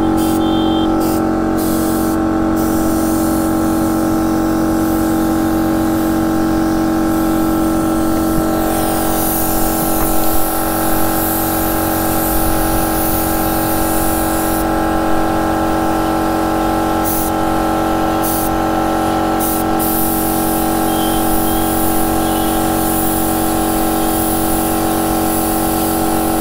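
Compressed-air spray gun hissing as it sprays glossy black paint onto a KTM RC motorcycle fuel tank. The hiss comes in short bursts at first, then in long spells from about a third of the way in, over a steady hum.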